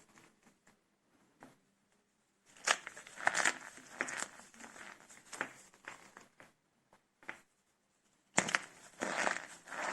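Starch-filled soap cups being broken and crumbled: scattered crisp crackles and crunches after a quiet start, then a sharp crack and denser crunching near the end.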